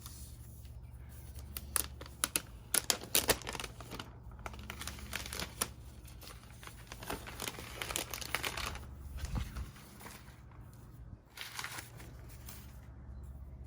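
Packaging wrap from a keyboard crinkling and tearing as it is handled and pulled away, in irregular bursts of sharp crackles. A steady low hum runs underneath.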